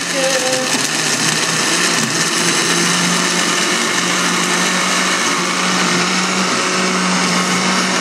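Countertop blender running at speed, blending ice with watermelon, nectarine and liquid: a steady motor hum beneath loud, even noise.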